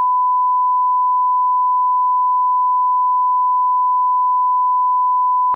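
Steady, pure 1 kHz line-up test tone of the kind played with SMPTE colour bars, held at one unchanging pitch and level, cutting off abruptly at the end.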